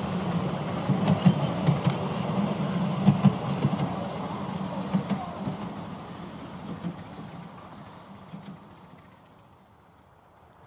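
A miniature railway train running on the track, rumbling with sharp clicks and knocks, then fading away over the last few seconds until it is almost gone.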